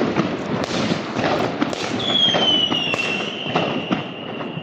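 Fireworks and firecrackers going off in a dense, continuous crackle of rapid bangs. About halfway in, a high whistle starts, falls slightly in pitch and holds.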